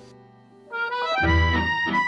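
Background music that comes in about two-thirds of a second in, a melodic tune with a low bass beat joining about a second in.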